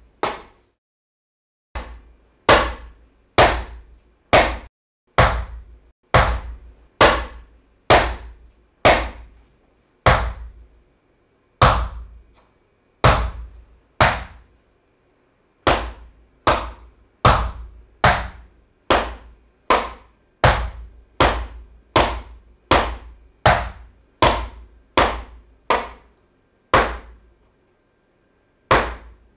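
Flamenco footwork: single sharp stamps of a flamenco shoe on a wooden floor, about two a second in a steady pulse, each ringing briefly. There are short breaks near the start and the end.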